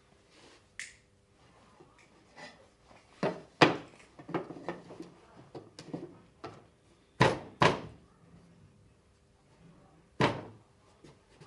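Hardwood boards knocking and clacking against one another and the workbench as the panels of a small mortise-and-tenon shelf cabinet are handled and fitted together. A run of sharp wooden knocks: one about three and a half seconds in, two close together past seven seconds, and one about ten seconds in, with lighter taps between.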